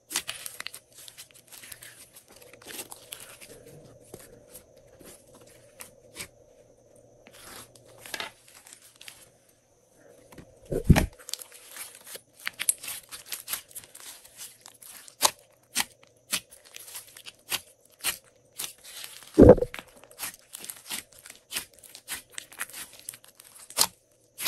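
Glossy slime being pressed and squished by hand, giving a running stream of small crackles and clicks. Two loud, deep pops stand out, about halfway through and again near the end, as trapped air is squeezed out of the slime.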